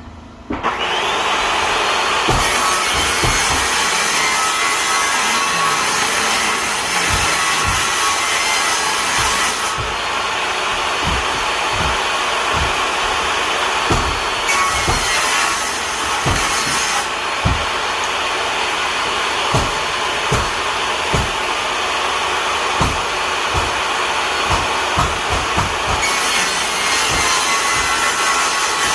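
Table saw starting up and ripping a hardwood floorboard lengthwise into a thin spline strip, the blade's pitch rising as it gets up to speed about half a second in. The cutting sound changes several times through the passes, with scattered light knocks of wood on the saw table.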